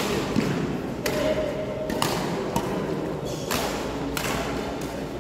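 Badminton doubles rally in a reverberant indoor hall: several sharp racket hits on the shuttlecock, roughly a second apart, with players' footsteps thudding on the court.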